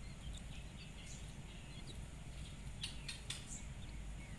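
Faint, scattered high peeps of Japanese quail chicks calling for their mother hen, who has flown off. A few short sharp ticks come about three seconds in.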